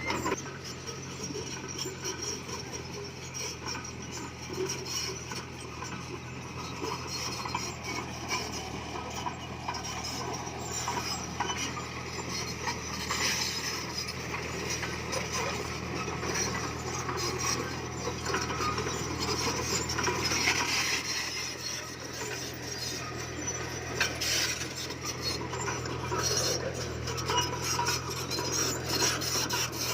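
Komatsu bulldozer's diesel engine running steadily, under continuous metallic clanking and rattling from its steel tracks and the stone it is pushing.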